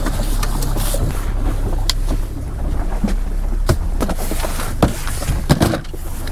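Boat engine running steadily at trolling speed, a low rumble, with several sharp clacks of plastic tackle boxes being picked up and set down on a rubber deck mat.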